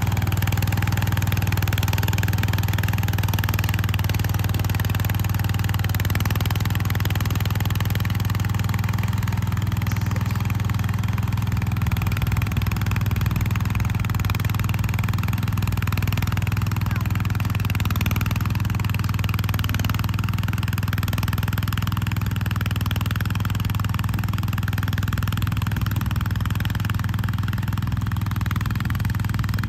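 1970 Montgomery Ward Gilson garden tractor's engine running steadily under load as it drives its rear rototiller through grass sod, with a low, even hum that fades slightly near the end as the tractor moves away.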